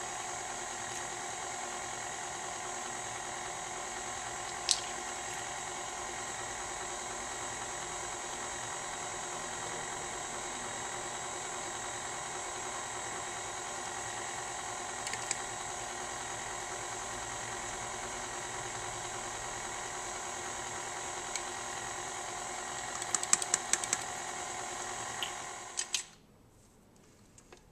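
KitchenAid tilt-head stand mixer running at a steady speed, its motor humming as the flat beater creams a thick cake batter in a stainless steel bowl, with a few light clicks along the way. The motor stops near the end.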